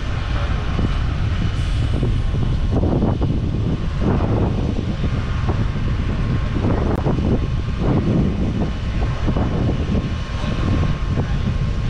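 Jet engines of the Blue Angels' F/A-18 Super Hornets: a loud, steady rumble with a faint high whine throughout.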